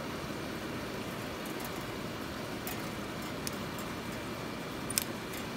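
Steady factory room noise, with a few faint clicks and a sharper one about five seconds in as scissors and wire are handled at the metal extruder die.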